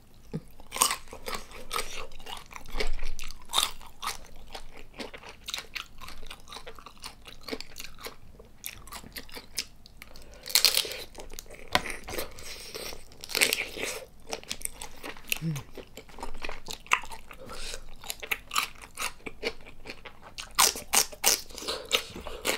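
Close-miked eating sounds: chewing and biting of soy-sauce-marinated raw tiger prawn, with many sharp crunches and crackles. The loudest crunches come in clusters about halfway through and again near the end.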